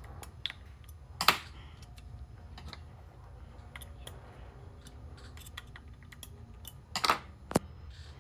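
Scattered light clicks and taps from hands working the key cutting machine as its cutter and probe are set against the clamp, over a faint steady hum. There is a sharper click about a second in and a couple more near the end.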